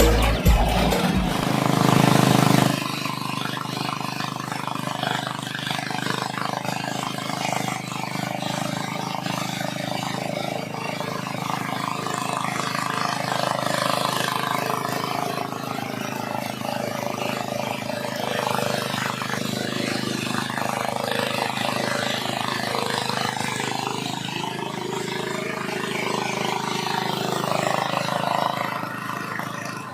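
Corn thresher running with a steady engine drone. It is louder for the first couple of seconds, then drops to an even level.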